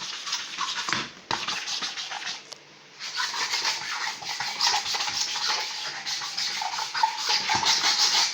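A scrubber rubbing hard and fast over the front of a fridge, a harsh scratchy scrubbing noise. It drops out briefly a little over a second in and goes quiet for most of a second before starting again.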